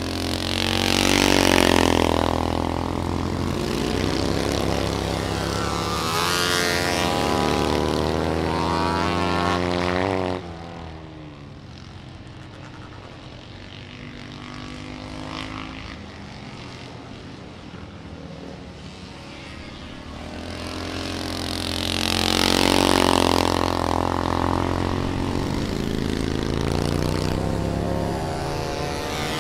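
Classic racing motorcycles on a dirt oval, several engines revving hard and passing close, their pitch sweeping up and down as the riders throttle off and on through the turn. About ten seconds in the sound drops suddenly to a quieter, more distant engine drone, then builds again to another close, loud pass.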